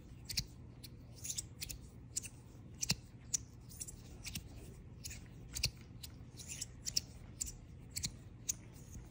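Lowrey magnetic fidget slider being worked in the hand: its metal plates slide and snap into place with light, irregular clicks, about two a second.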